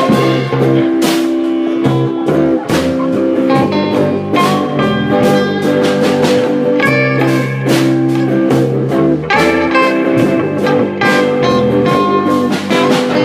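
Instrumental break in a blues-rock band song: guitar playing over a steady drum beat, with no vocals.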